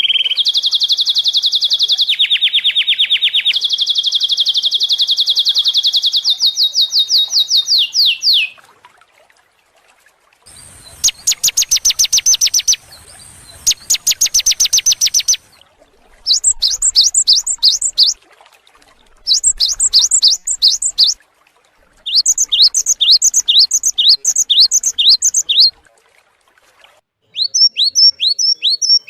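Songbird song: a long, very fast trill lasting about eight seconds, then two more rapid trills after a short pause, then four separate bursts of quick repeated down-slurred notes.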